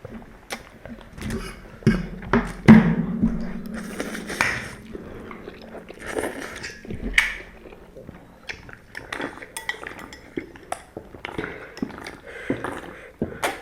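Close-up chewing of ramen noodles, with scattered sharp clicks and clinks of utensils against a bowl.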